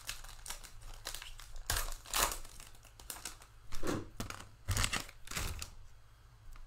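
Wrapper of a Panini Prizm football trading-card pack crinkling and tearing as it is opened and the cards are pulled out, in a series of sharp rustles that stop about a second before the end.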